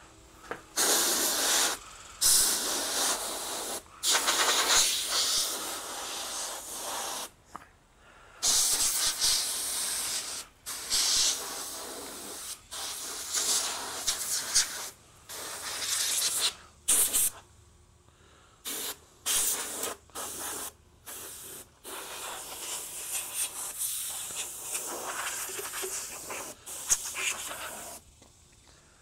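A can of compressed air spraying in many separate bursts, some short and some lasting a couple of seconds, with brief pauses between them. It is blowing leftover water out of a freshly washed motorcycle.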